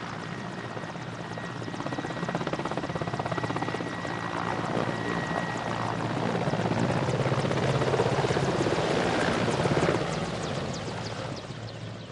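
Mil Mi-8 twin-turbine helicopter passing by: fast rotor blade chop with a thin high whine, growing louder to a peak about eight to ten seconds in, then fading off.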